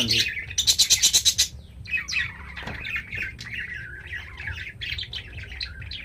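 Budgerigars chattering and warbling, with a rapid buzzy trill near the start followed by continuous twittering chatter.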